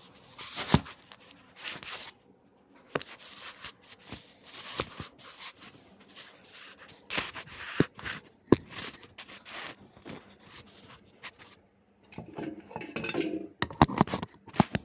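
Repeated short scraping and rubbing sounds, with several sharp clicks and knocks in between and a denser stretch of scraping near the end.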